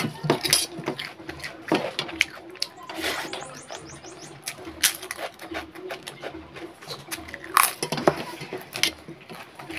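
Close-up eating sounds: fingers mixing rice against a steel plate while a papad is bitten and chewed, giving irregular sharp crunches and clicks.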